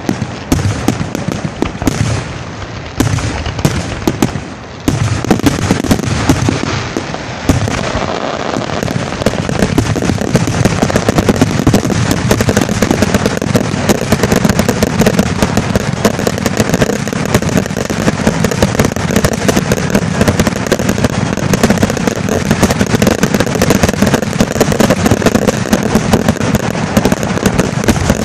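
Loud fireworks finale barrage: aerial shells bursting one after another, the bangs packing into an almost continuous rumble from about five seconds in.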